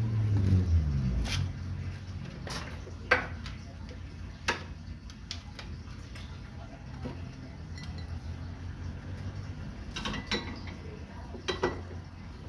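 Scattered sharp clinks and knocks of glass and metal being handled, as a glass bottle is worked in a bottle-cutting rig, the loudest about three seconds in. A low rumble fades out in the first second or so.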